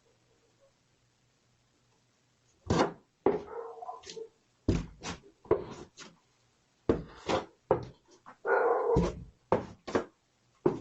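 A moose right at a doorbell camera, sniffing at the door. After a couple of seconds of near silence comes an irregular run of short, sharp sniffs and bumps, with two longer breaths of about a second each.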